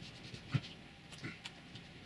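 Hands smoothing and pressing vinyl film onto a worktop board: faint rubbing with a few light taps and knocks, the loudest about half a second in.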